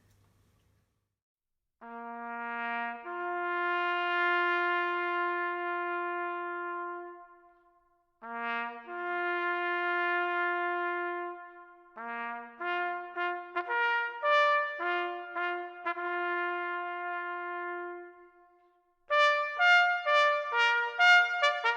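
A bugle call played on a single brass instrument: twice a short low note leaps up to a long held note, then a run of shorter notes follows, and quicker notes begin near the end.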